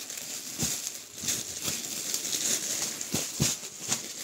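Plastic packaging rustling and crinkling as wrapped clothing packets are handled, with several soft knocks as they are moved and set down.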